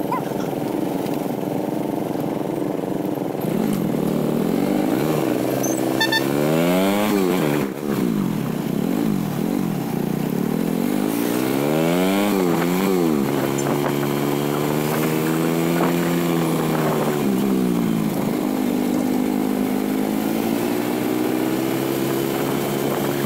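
Yamaha FZ150's single-cylinder four-stroke motorcycle engine pulling away and accelerating through the gears. Its pitch climbs and drops at upshifts about seven and thirteen seconds in, holds steady while cruising, then climbs again near the end.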